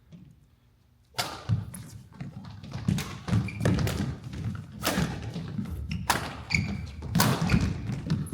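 Badminton singles rally: sharp racket hits on the shuttlecock mixed with heavy footfalls and lunges on the court floor, with a few short shoe squeaks. The play starts about a second in and keeps going.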